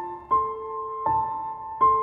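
Slow background piano music: single notes struck about every three-quarters of a second, each left ringing.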